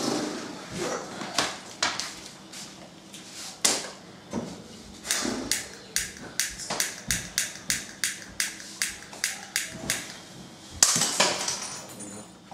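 A run of light taps or clicks, coming about three a second for several seconds, then one louder knock near the end.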